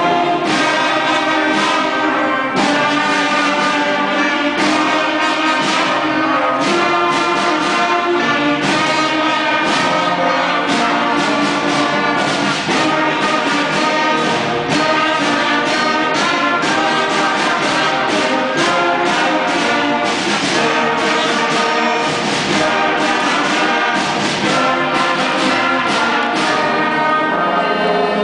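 Student concert band playing, brass to the fore: trumpets, trombones and baritone horns sound chords and a moving melody without a break.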